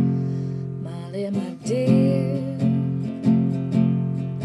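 Acoustic guitar strummed in a steady rhythm as a song accompaniment, the chords ringing between strokes. A voice holds a short wavering note about two seconds in.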